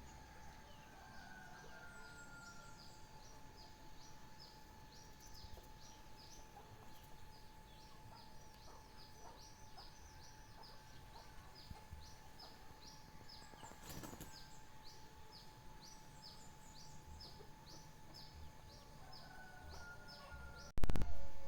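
A songbird repeating short, high, downward-sweeping chirps in a long, even series, about two or three a second, over a faint steady hum. A loud sudden thump comes near the end.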